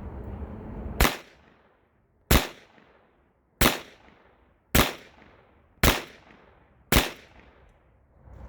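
Six shots from a Taurus 327 revolver, fired steadily, one about every second and a quarter, each a sharp crack with a short fading echo.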